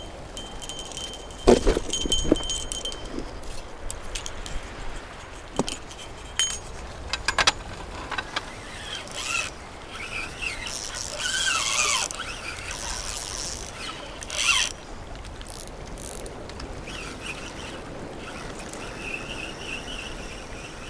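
Loose rounded stones on a cobble shore clacking and clinking against each other in scattered bursts, with a few chirping bird calls around the middle.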